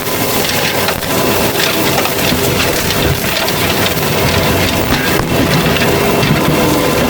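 Fecon forestry mulcher head grinding through brush and small trees: a continuous crunching and splintering of wood, with a steady whine under it.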